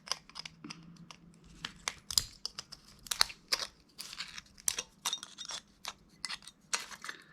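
Irregular sharp clicks and crunches of an old mobile phone's plastic and metal parts being pried apart and handled.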